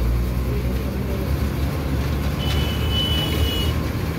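Steady low rumble of road traffic and a moving vehicle, with a thin high tone held for about a second midway through.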